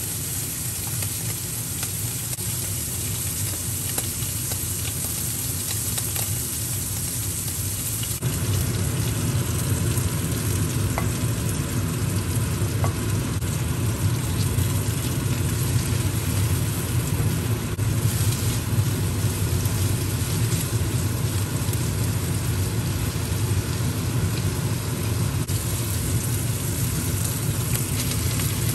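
Diced pork frying in a hot pan, a steady sizzle, stirred with a spatula; the sizzle gets louder about eight seconds in.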